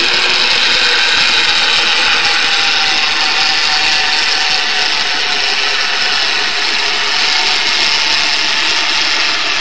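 Crab pot boat's engine and propeller heard underwater through a hydrophone: a loud, steady hiss with faint humming tones underneath.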